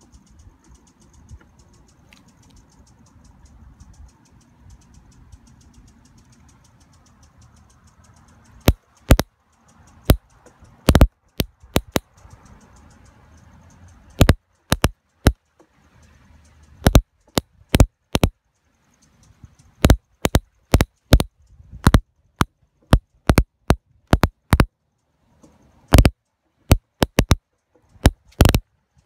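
High-voltage sparks from an ignition coil snapping across an open air gap to a bolt on a test board. There are sharp cracks, irregularly spaced, singly and in quick runs, starting about nine seconds in after a faint hum. Each crack means the ignition module is firing the coil.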